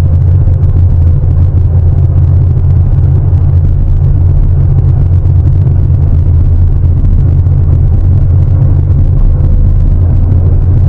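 Heavy diesel engine of a Sany 750 excavator running steadily under work: a loud, unbroken low rumble.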